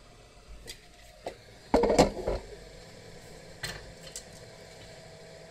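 Small hard objects being handled on a work surface: a few light clicks, then a short cluster of knocks and rattles about two seconds in, and two more clicks later.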